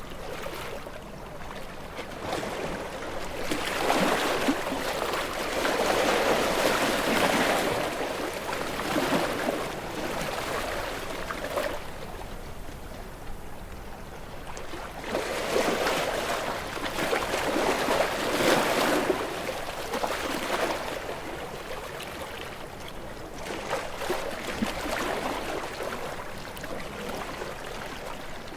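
Ocean waves washing against rocks, the water noise swelling and falling back in slow surges, two larger ones about four seconds in and again about fifteen seconds in.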